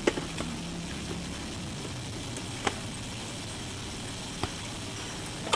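A ball being batted back and forth by hand, heard as a few sharp taps, one every couple of seconds, over a steady hiss.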